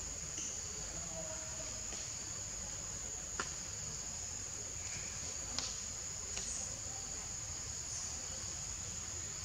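Insects singing in a steady, high-pitched, unbroken drone, with a low background rumble and two sharp clicks about three and a half and five and a half seconds in.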